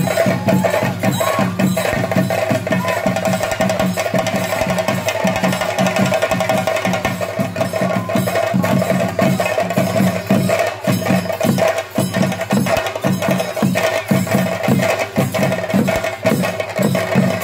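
Theyyam chenda drumming: several chenda drums played with sticks in fast, dense, continuous strokes, with a steady ringing tone held underneath.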